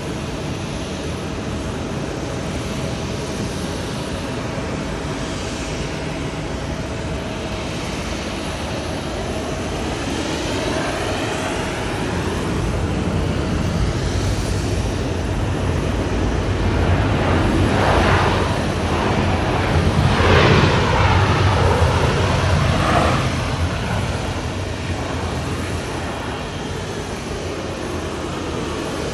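An airliner's engines passing on its landing approach, building steadily to a peak a little past the middle and then fading away, with a sweeping, phasing whoosh as it goes by.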